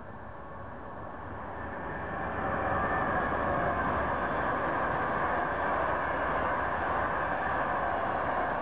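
Virgin Trains express passenger train passing at high speed. The noise of wheels on rail and rushing air grows over the first two or three seconds as it approaches, then holds steady and loud as the carriages go by.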